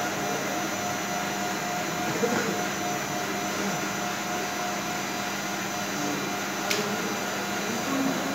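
Steady mechanical whir of kitchen machinery, with a constant hum running through it. A single short tick sounds late on.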